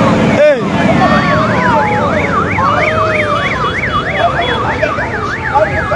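A siren sounding in a fast up-and-down yelp, about three sweeps a second, starting about a second in, over a steady low rumble of street traffic.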